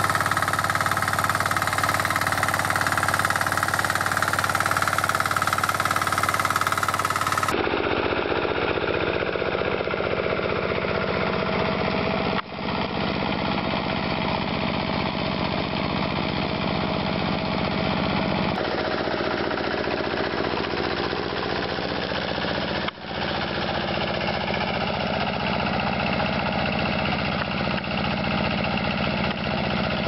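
Small engines of a walk-behind rotary tiller and two-wheel walking tractors running steadily under load while tilling and digging soil. The engine sound changes abruptly four times as one machine gives way to another.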